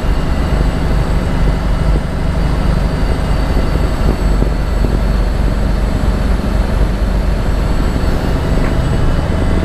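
1987 International Paystar dump truck's diesel engine running steadily under way, heard from inside the cab together with road and cab noise.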